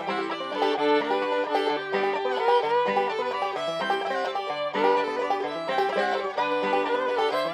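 Instrumental bluegrass break with rolling banjo picking under a fiddle playing sliding melody lines, and no singing.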